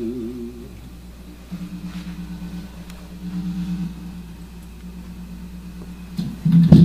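Homemade hand-cranked stepper-motor drone instrument played through a guitar amplifier with a pitch-shift effect: the motors' electromagnetic pulses are picked up by coil pickups and come out as a low, wavering, pulsing buzz. Near the end it suddenly becomes a much louder, dense buzzing drone.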